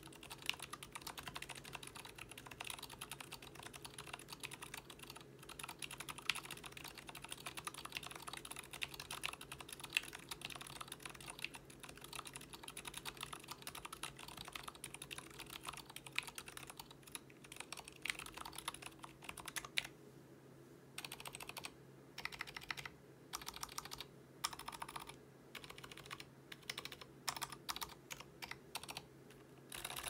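Typing on a split Alice-layout mechanical keyboard with lubed ZealPC Zilent v2 silent tactile switches on 62g springs, an acrylic plate and case, and GMK Cherry-profile ABS keycaps. Keystrokes come in a steady stream, then break into short bursts with brief pauses about two-thirds of the way through.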